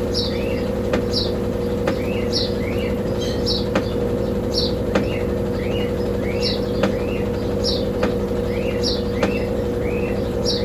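Brastemp Double Wash 15 kg washing machine running its intermediate spin with only the mini basket: a steady motor hum with light ticks about once a second. A small bird chirps over it, short rising notes repeated again and again.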